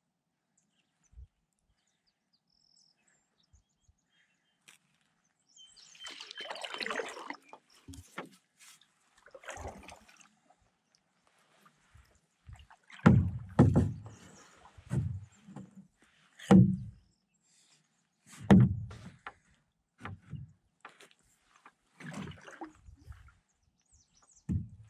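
Canoe paddle strokes in calm water. It is quiet at first, with a swish about six seconds in. From about halfway there is a stroke every one to two seconds, each with a splash and a dull thump.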